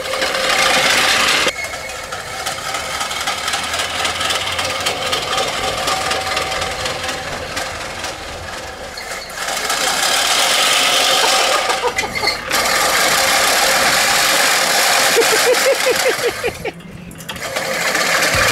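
Homemade ride-on mower, a mobility scooter pushing a manual cylinder reel mower, running across the lawn: the reel's blades whirring and rattling through the grass along with the scooter's drive. The sound breaks off briefly a few times and picks up again.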